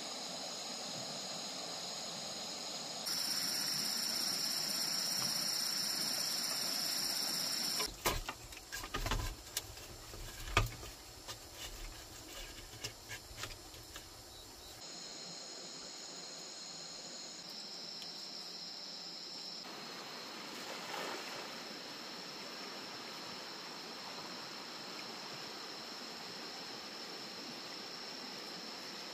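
Steady high chirring of insects, such as crickets. It shifts in pitch and level at several abrupt cuts. In the middle stretch it is broken by a run of irregular knocks and low thuds.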